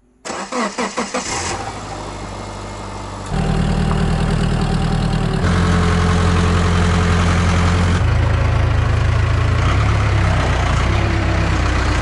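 1991 Case backhoe's diesel engine cranking and catching just after the start, then running steadily. It grows markedly louder in two steps as the machine drives up close, and its note changes again about two-thirds of the way through.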